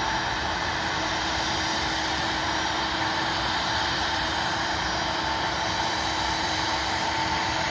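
Bombardier CRJ-100 jet's General Electric CF34 turbofan engines running steadily at idle on the ground: an even rushing noise with several held whining tones, unchanging throughout.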